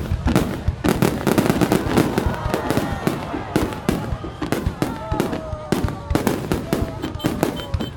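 Fireworks going off: a dense, unbroken run of sharp bangs and crackles, several a second.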